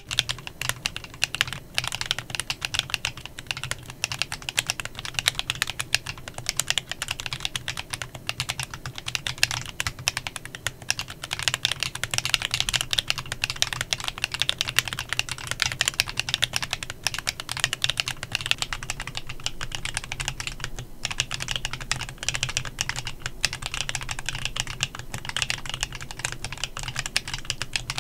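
Fast, continuous typing on a Klein Mont Cervin custom mechanical keyboard fitted with Kinetic Labs Candy Vanilla switches, a run of crisp key clacks with a short pause about two-thirds of the way through.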